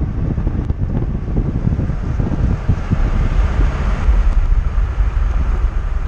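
Wind buffeting the microphone: a loud, gusty low rumble with a rushing hiss above it.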